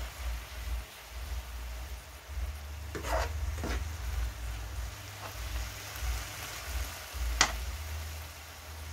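Spinach frying with a gentle sizzle in a non-stick pan while a utensil stirs it, knocking and scraping the pan a few times, with one sharper click near the end.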